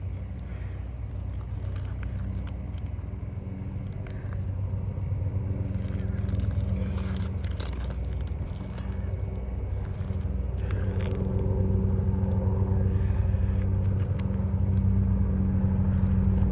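A steady engine hum that grows gradually louder, with a few light clicks and scrapes of tools working on the shingles.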